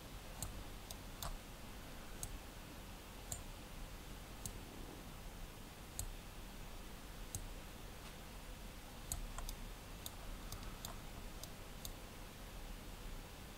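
Faint computer mouse clicks, a dozen or more at irregular intervals, coming closer together about two-thirds of the way through, as node connections are dragged in Blender's node editor.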